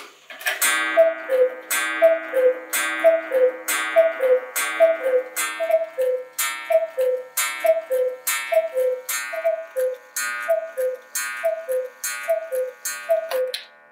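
Black Forest cuckoo clock striking the hour: the two-note falling cuckoo call repeats about once a second, each call with a strike on the steel gong chime ringing on behind it.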